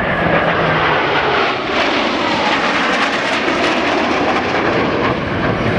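Blue Angels F/A-18 Hornet jets making a pass: loud, steady jet engine noise with a whine that falls in pitch over the first few seconds as they go by.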